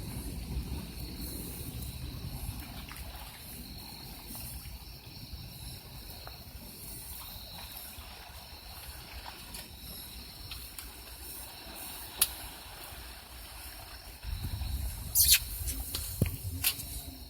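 Water sloshing and lapping around a small boat with a steady low rumble, and a few sharp clicks near the end, the loudest about three seconds before the close.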